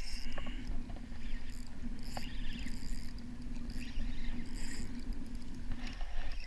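Spinning reel being cranked to wind in line, a steady gear whir that stops about six seconds in, with wind rumbling on the microphone and scattered small clicks.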